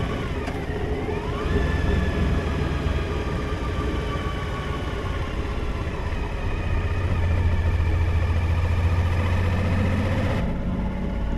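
Suzuki V-Strom motorcycle's V-twin engine running at low road speed, easing off and then pulling away again, growing louder for a few seconds past the middle, with wind noise over the camera.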